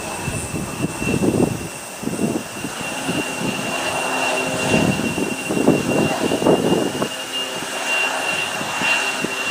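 Jet airliner's engines running with a steady high whine, while irregular gusts of wind buffet the microphone several times.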